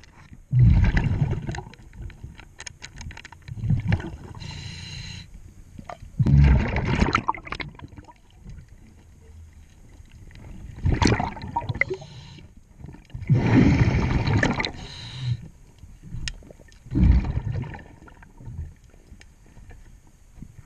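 Scuba diver breathing underwater through a regulator: gurgling bursts of exhaled bubbles every few seconds, with the hiss of an inhalation between them.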